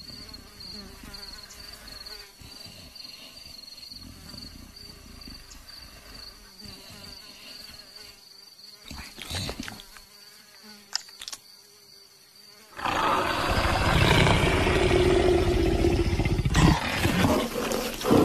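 Steady insect buzz of a savanna ambience, with a few faint clicks. About thirteen seconds in, a much louder rough growling takes over: an animated leopard straining as it clings beneath a tree branch.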